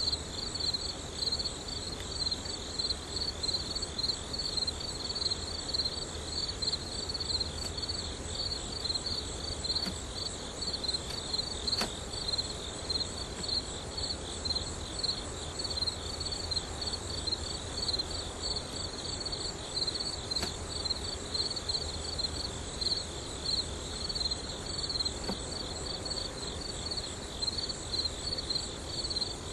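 Crickets chirping in a steady, rapid high-pitched trill.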